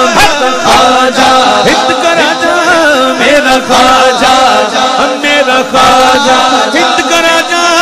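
A man singing an Urdu Sufi manqabat in praise of Khwaja Gharib Nawaz into a microphone, drawing out long wavering notes without clear words.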